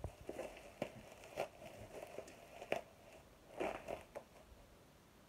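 Bubble wrap and plastic packaging crinkling and rustling as it is pulled off a parcel by hand, in short irregular crackles that thin out after about four seconds.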